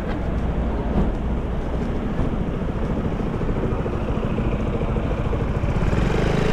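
Street traffic noise: a vehicle engine running close by over a general city din, growing a little louder near the end.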